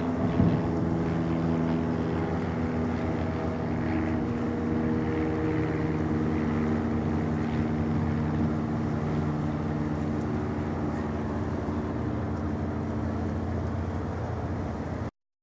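Steady drone of ship engines: a low hum carrying several held tones that shift slightly in pitch now and then, cutting off abruptly near the end.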